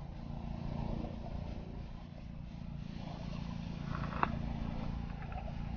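Steady low motor drone, with a single sharp click about four seconds in.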